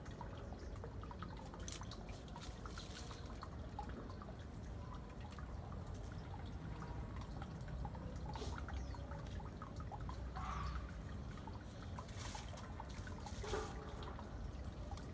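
Faint scattered ticks and rustles of a chicken pecking and scratching through leaf litter, over a low steady rumble.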